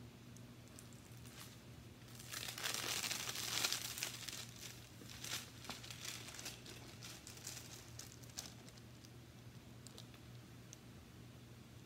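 Clear plastic film crinkling as a diamond painting canvas with its plastic cover sheet is handled and unfolded: a dense burst of crinkling about two seconds in that lasts around three seconds, then lighter, scattered crackles.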